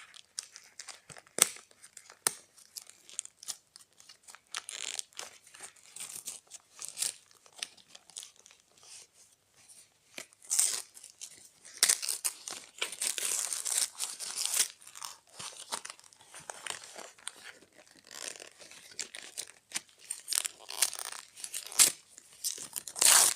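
Newspaper and plastic wrapping being torn and crumpled by hand: irregular rustling and crackling, with a long spell of tearing about halfway through and a loud rip near the end.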